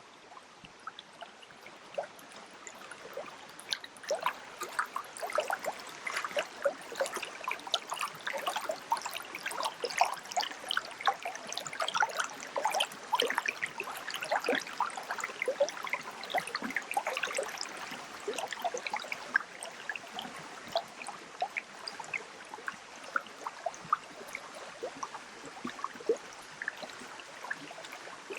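Water trickling in a small stream: a dense, uneven run of little splashes and gurgles, busiest in the middle and thinning out near the end.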